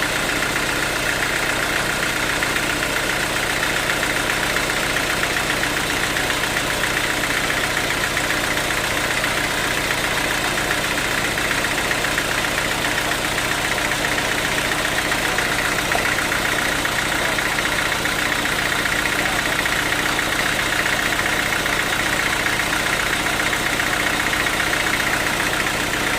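Band sawmill machinery running steadily, an even engine-driven noise with a constant high hiss that does not change.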